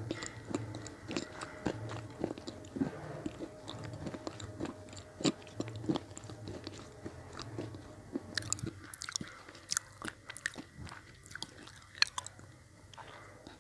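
Red slate pencil blocks being crunched and chewed, close-miked at the mouth: irregular gritty crunches, with sharper, crisper crackles from about eight seconds in.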